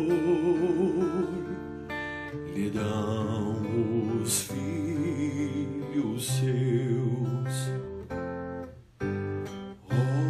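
Acoustic guitar strumming a hymn accompaniment under a melody line sung or played with vibrato. The music breaks off briefly about nine seconds in and comes back.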